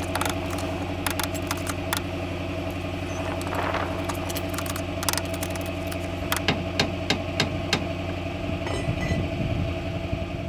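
Irregular metal clinks and knocks from a trolley jack and a rear suspension arm being worked into place against spring pressure. Underneath runs a steady low machine hum, like an engine idling, that fades out near the end.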